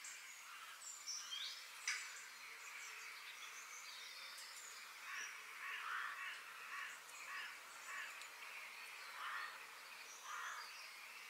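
Birds chirping and calling over a faint outdoor ambience, with short repeated calls throughout and a sharp click about two seconds in.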